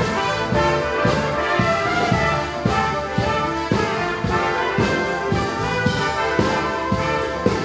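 Live concert band playing, with brass (trumpets and trombones) holding full chords over a steady drum beat.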